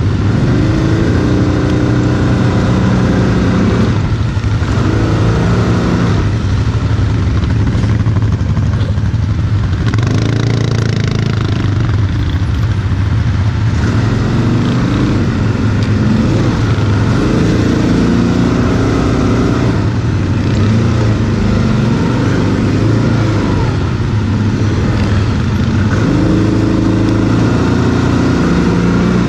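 Quad bike (ATV) engine being ridden hard off-road, its note rising and falling again and again as the throttle is opened and closed.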